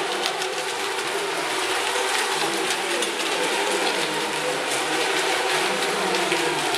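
Several small electric RC racing boats running together: a steady whine of several wavering pitches from their motors over a constant hiss.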